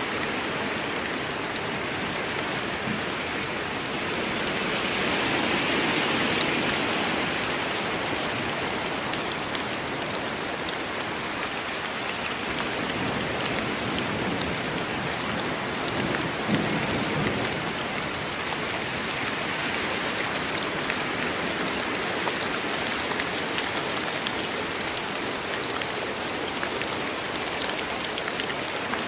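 Steady heavy rain falling on forest foliage and ground, a dense hiss with the patter of individual drops, swelling briefly a few seconds in.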